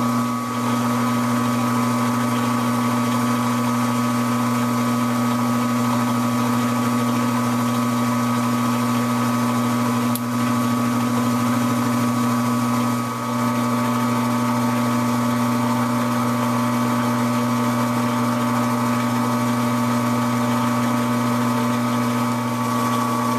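Metal lathe running steadily with a constant hum and whine during a thread-cutting pass on a rifle screw.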